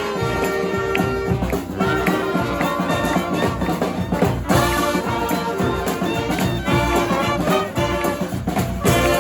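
Brass band playing: trumpets and trombones hold and change chords over a steady beat of drums and cymbals.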